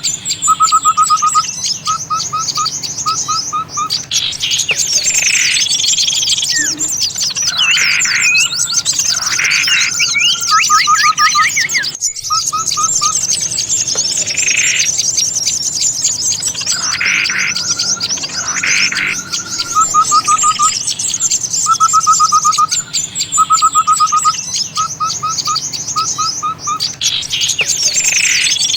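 Bird-luring recording of many small songbirds calling together: dense high-pitched twittering throughout, groups of short rapid trills at a lower pitch, and several louder harsh calls, used to draw small birds in.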